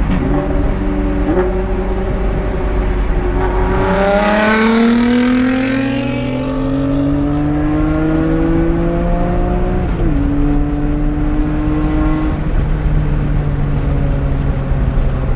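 Nissan Skyline R32's engine under hard acceleration, heard from inside the cabin. Its pitch climbs steadily for several seconds, drops suddenly at an upshift about ten seconds in, then holds steadier.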